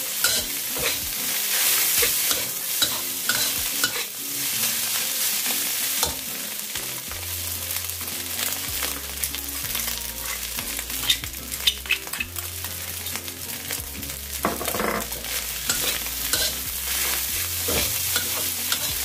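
Fried rice with egg being stir-fried in a hot black wok: a steady sizzle, with a metal spatula repeatedly scraping and knocking against the pan as the rice is tossed.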